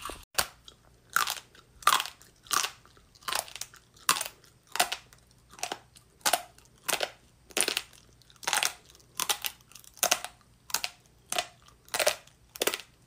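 An even run of crisp crunches, about three every two seconds, like crunchy food being chewed.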